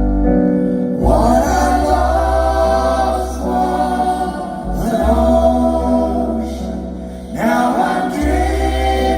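Live band music: sustained keyboard chords under several voices singing together in harmony, choir-like, with the vocal phrases coming in three times.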